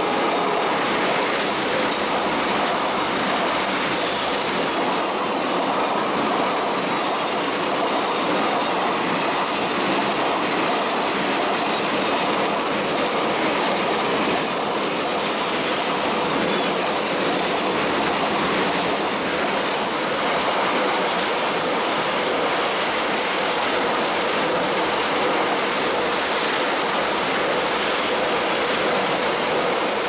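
Container flat wagons of a freight train rolling past at close range: a steady rumble of wheels on rail, with high-pitched wheel squeal coming and going as the wheels take the curve.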